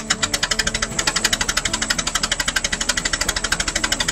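1919 Fordson Model F tractor's four-cylinder engine running with a sharp, even firing beat that quickens about a second in.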